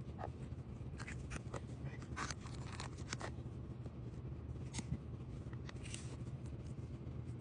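Light clicks, taps and scrapes of small tools and parts being handled during a Hot Wheels wheel swap, bunched in the first few seconds with a couple more near the end, over a steady low hum.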